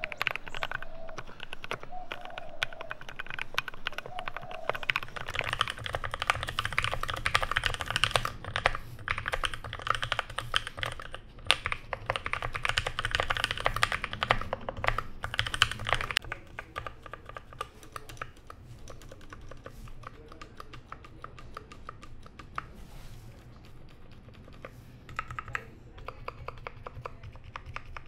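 Typing on custom-built 60% mechanical keyboards fitted with thick PBT and DSA-profile keycaps: a fast, dense stream of key clacks, louder for the first half, then softer, sparser typing on a second board.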